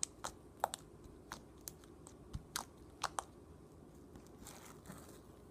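Sticky homemade glitter slime clicking and popping as it is squeezed and pulled in the hands: about a dozen short, sharp, irregular clicks over the first three seconds, then only faint handling.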